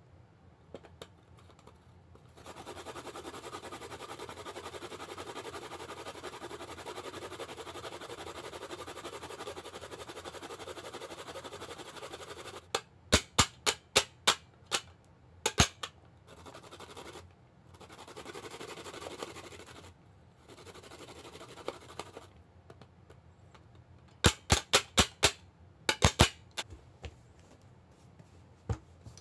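Ginger and garlic grated on a plastic grater: a steady rasp for about ten seconds, then a quick series of sharp clicks and knocks. Shorter bursts of rasping follow, and another cluster of sharp clicks comes near the end.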